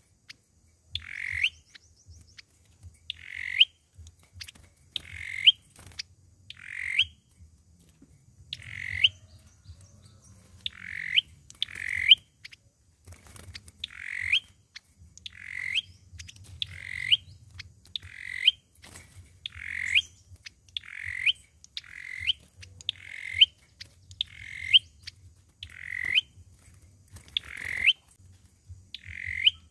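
Olive-backed sunbird calling over and over: a short, sharp upward-sweeping call repeated about once every second and a half.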